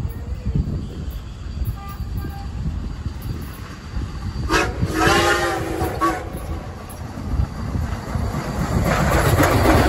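Reading & Northern 2102, a 4-8-4 steam locomotive, blows its steam whistle in one chord of about a second and a half, about halfway through. Near the end the engine and its wheels grow loud with a rattling clatter as it draws close.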